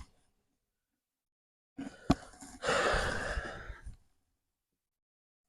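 A couple of sharp clicks, then a man letting out a long sigh lasting just over a second.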